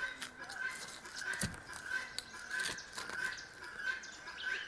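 Steady rhythmic chirping outdoors, pulsing about twice a second, with scattered light clicks and a soft thump about a second and a half in.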